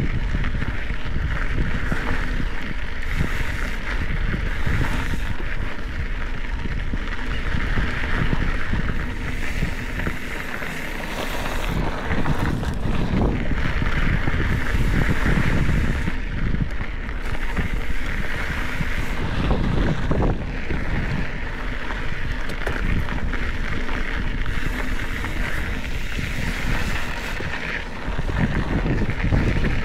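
Wind buffeting the camera microphone during a mountain bike ride on a Specialized Epic 8 Evo, with the tyres running over dry dirt trail and scattered knocks and rattles from the bike over bumps.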